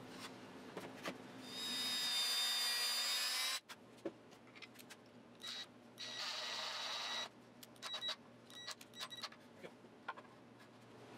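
Ridgid 18V cordless drill running in two spells, one of about two seconds and one of about a second, each with a steady whine that cuts off suddenly; the second drives a screw into the wooden release bar. Light knocks and clicks from handling the wood come between the runs.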